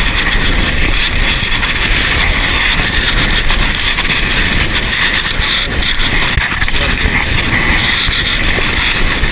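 Steady running noise of a vehicle driving along a rough dirt road, with wind buffeting the microphone.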